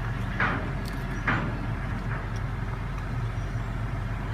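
Link-Belt 8065 crane's diesel engine running steadily while the boom is lowered on its hydraulic cylinders, with two short hissing sounds about half a second and a second and a half in.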